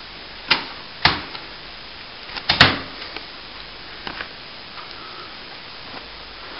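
A few separate sharp knocks and taps over a faint steady hiss, the loudest about two and a half seconds in: hand work while packing cement into a plaster cornice.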